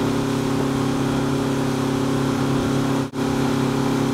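Motorboat engine running at a steady speed while towing a tube, with a steady rush of wind and wake water over it. The sound drops out for a split second about three seconds in.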